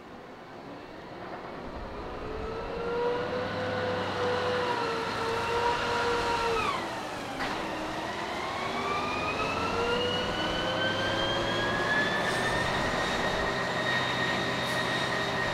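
Aircraft rescue and firefighting crash truck's engine and pump whining while it sprays water onto an aircraft fire, over a steady rush of spray and flames. The whine's pitch drops sharply about halfway through, then climbs slowly and holds high.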